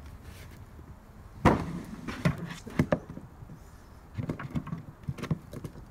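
Plastic toys being handled: an action figure being stood up beside a toy motorcycle, with a sharp knock about a second and a half in, then scattered clicks and taps.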